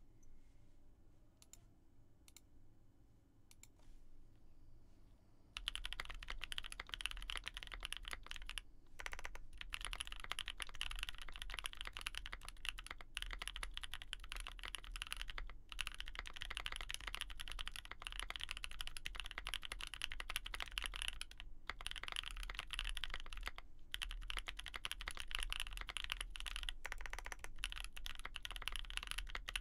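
Typing on a Mode65 aluminium mechanical keyboard with lubed Gazzew Boba U4T tactile switches, a POM plate and GMK keycaps: a dense, steady run of keystrokes with a few short pauses. It starts about five seconds in, after a few faint clicks.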